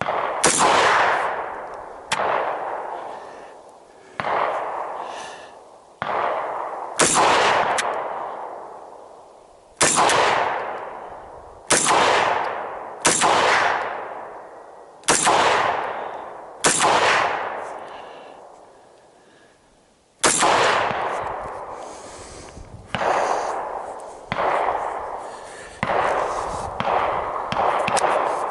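AR-15 rifle firing a string of single shots, one every one to three seconds, each followed by a long echoing decay. After a pause the shots come faster, about one a second, near the end.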